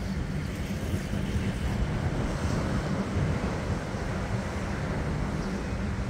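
Wind buffeting the microphone in a steady, fluttering low rumble, over the wash of ocean surf on a sandy beach.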